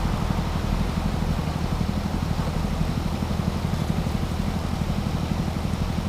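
Gold suction dredge's small gasoline engine running steadily at a constant speed.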